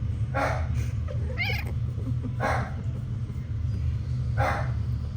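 A cat giving about four short meows or chirps a second or so apart, one of them wavering in pitch, over a steady low hum.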